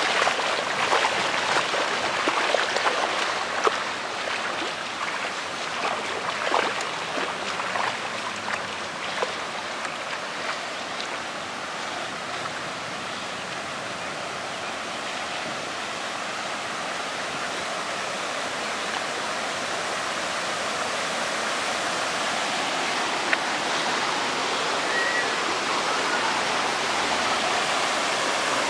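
Storm floodwater rushing across a flooded parking lot: a steady noise of fast-running water that grows louder over the second half. In the first several seconds there are sharp splashes from feet wading through the shallow water.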